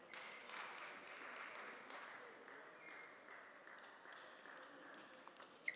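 Faint scattered applause in a sports hall, strongest at first and then fading. Near the end comes one sharp, ringing tap of a table tennis ball.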